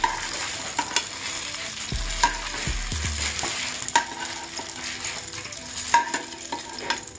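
Oil sizzling under fried whole brinjals in an aluminium pan, with a metal spatula scraping and clinking against the pan and a steel bowl every second or two as the brinjals are lifted out.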